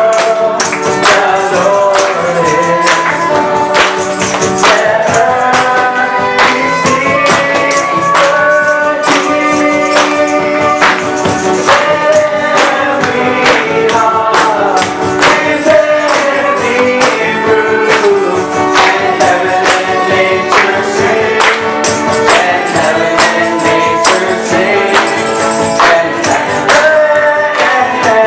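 Singing voices with a tambourine and instrumental backing, playing with a steady beat.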